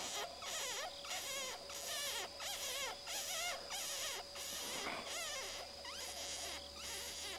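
Electronic predator caller playing a looped distress call: rapid, wavering high-pitched squeaks repeated over and over above a rhythmic pulsing hiss, used to lure jackals in.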